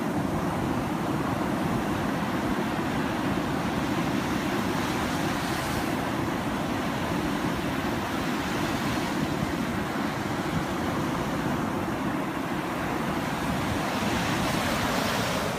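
Gulf surf breaking and washing up the sand in a steady, loud rush, with wind on the microphone.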